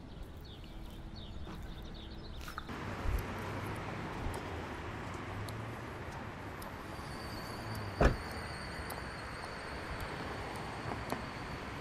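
City street traffic: a steady hum of passing cars, with one sharp thump about eight seconds in. Birds chirp faintly for the first couple of seconds.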